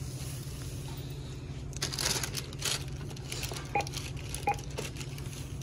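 Plastic wrap of a four-roll toilet paper pack crinkling as it is handled and set down on a checkout counter. A few short clicks come later, over a steady low hum.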